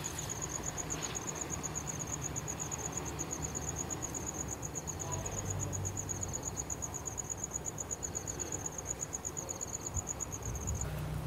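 Cricket trilling, a high, rapid, even pulsing that cuts off abruptly near the end, over a faint low background rumble.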